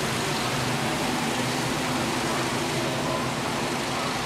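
Steady outdoor background noise: an even rushing hiss with a faint low hum underneath, unchanging throughout.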